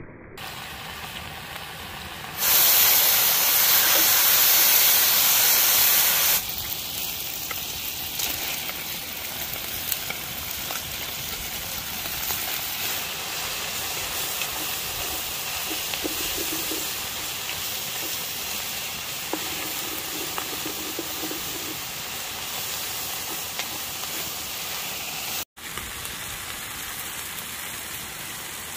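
Cast iron pot over a wood fire hissing and sizzling steadily, with a much louder hiss of steam for about four seconds a couple of seconds in. The sound cuts out for an instant near the end, then the sizzling goes on.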